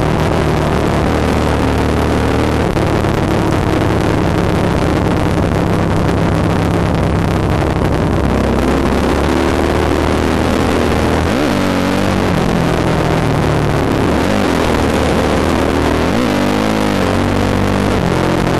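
Yamaha YZ450F dirt bike's four-stroke single-cylinder engine running under way, heard from on board: a steady engine note for the first half, then the revs swing up and down twice in the second half.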